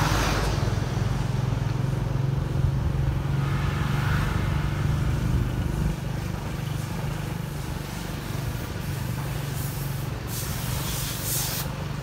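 A motorbike engine runs steadily while riding along a street, with wind and road noise. A truck passes close by at the start, and there are short bursts of hiss about ten seconds in.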